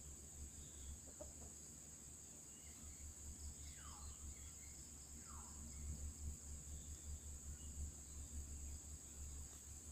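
Steady high-pitched insect drone, with two short descending bird calls about four and five and a half seconds in.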